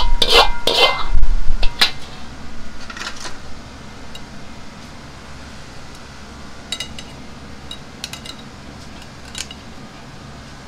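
A metal ladle scraping and knocking against a wok as the last of the sweet-and-sour chicken is emptied onto a plate: loud clattering over the first two seconds. After that come a few light clicks of a utensil touching the plate, clustered near the end.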